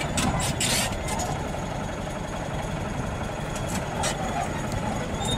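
Crawler bulldozer's diesel engine running steadily, with a few sharp clicks of loose stones in the first second.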